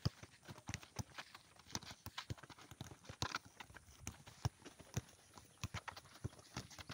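Several footballs being kicked and dribbled at once: a steady scatter of irregular thuds of foot on ball, a few of them much louder kicks.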